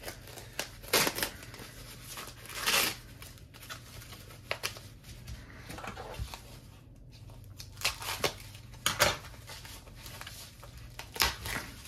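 Handling noise from unpacking 3D-printed plastic display stand parts: irregular short rustles, scrapes and light clicks.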